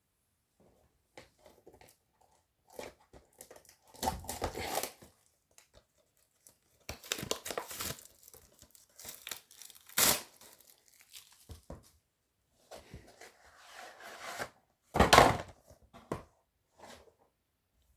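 Wrapping on a DVD box set being torn open and crumpled by hand, in irregular bursts of tearing and crinkling, the loudest rips about ten and fifteen seconds in.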